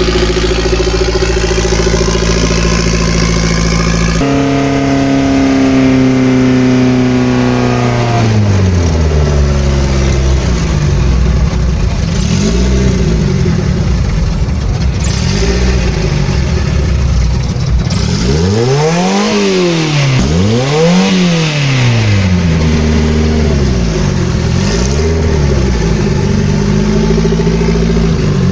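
Turbocharged 1999 Honda Civic engine, steady at first, then held at higher revs and dropping back. This is followed by a series of quick throttle blips, each revving up and falling back, the two largest coming in the middle.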